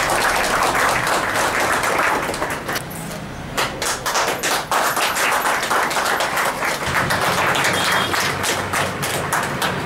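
A crowd clapping, a dense patter of many hand claps that eases briefly about three seconds in.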